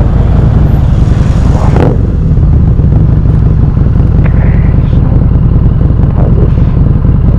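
Harley-Davidson Street 750's V-twin engine running through a non-stock exhaust while riding, loud and steady.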